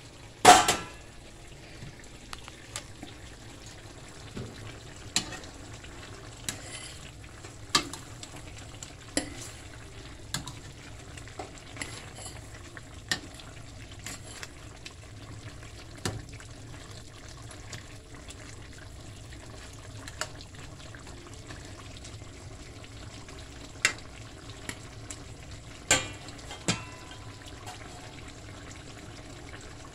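A metal pot lid clanks as it is lifted off a stainless steel skillet. Then a utensil stirs curry chicken simmering in the skillet, knocking lightly against the pan about once a second at first and less often later, over a steady sizzle.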